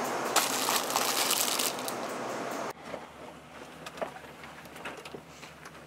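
Close rustling and crinkling handling noise for nearly three seconds, then an abrupt cut to a much quieter background with scattered light clicks and knocks.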